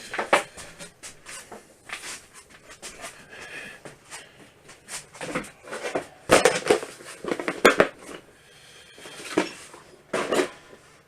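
Hard objects being handled and knocked about: irregular clunks, knocks and rattles, busiest about six to eight seconds in.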